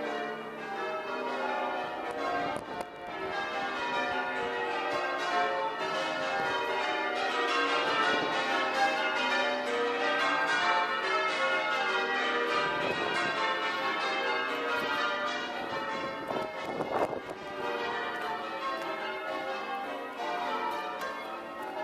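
A ring of church tower bells rung full circle in the English change-ringing style. Strikes follow one another quickly and their ringing tones overlap.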